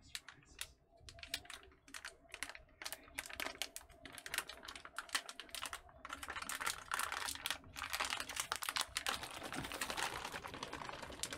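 Crinkling of an MRE's plastic flameless-heater sleeve and the foil entrée pouch inside it as they are handled and folded. It is a run of irregular crackles, sparse at first and thicker and steadier from about six seconds in.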